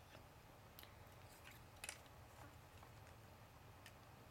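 Near silence with a few faint clicks of plastic building-block pieces being handled, the clearest about two seconds in.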